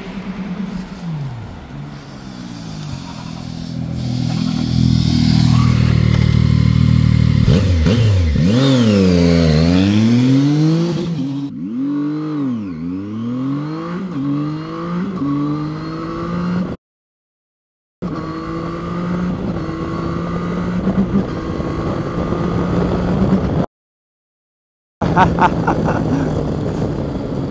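Zontes 703F's 699 cc three-cylinder engine under hard acceleration through the gears. The revs climb, then drop and climb again with each quick upshift several times in a row, held below the roughly 6,000 rpm break-in limit, before settling into steady running at speed. The sound cuts out twice, for about a second each time.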